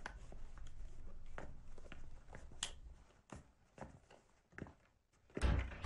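Footsteps and scattered light knocks and clicks of things being handled in a small room, with a heavier thump near the end.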